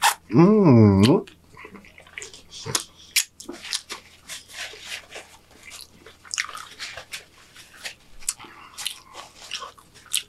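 Close-miked eating sounds: a short vocal sound at the start, then wet smacking of lips and licked fingers with scattered crackles of a paper napkin being rubbed over the hands.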